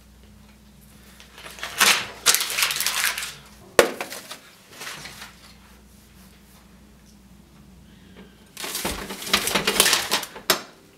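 Notepad paper rustling and crackling in two bouts of a second or two each, with a sharp click about four seconds in and another near the end.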